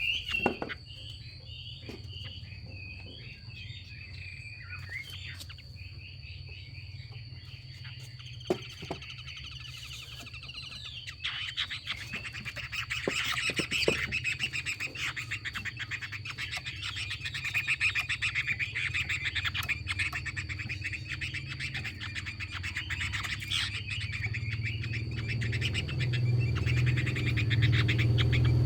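Female Chinese hwamei giving its harsh chattering 'xùy' call, the call keepers play to rouse a male hwamei into full song. The chatter is sparse at first and grows into a dense, rapid run about eleven seconds in.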